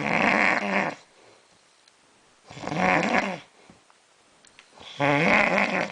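A sleeping man snoring really loud: three snores, each a little under a second long, about two and a half seconds apart.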